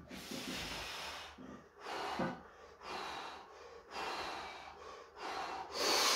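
A man breathing hard and forcefully through nose and mouth under a heavy barbell squat, about five deep breaths roughly a second apart, the last the loudest.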